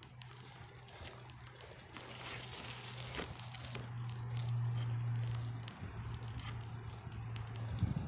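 Riding noise of a bicycle, picked up from its handlebars: a steady low hum that grows louder through the middle, with scattered clicks and rattles.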